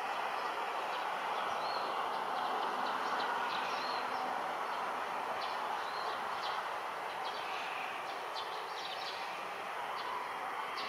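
A steady far-off rumble with a slight swell a few seconds in, and small birds chirping briefly several times over it.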